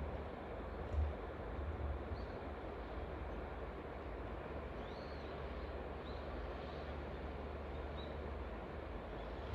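Steady low rumble with a broad outdoor hiss, and several short faint bird chirps above it.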